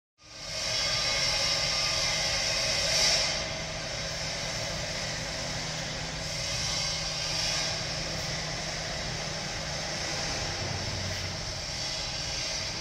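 Steady industrial machinery din in a shipyard workshop: a broad, even hiss over a low hum. It starts suddenly, swells briefly about three seconds in, then runs on steadily.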